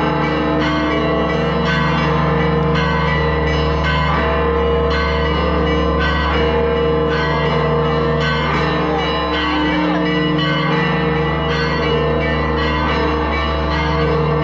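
Church bells ringing a rapid, continuous peal, the strokes coming several times a second and their ringing tones overlapping.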